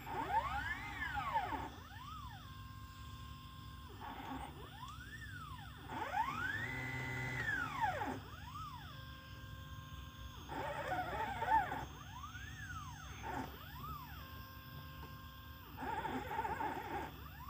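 Stepper motors of a homemade CNC machine whining as it traces a PCB layout with a pen: each move is a tone that rises and then falls in pitch as the head speeds up and slows down, some holding a steady pitch through longer straight runs, with short pauses between moves.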